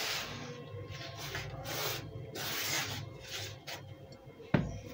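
Hands crumbling and rubbing damp sand: gritty rasping scrapes come in bursts. A sudden thump near the end is the loudest sound.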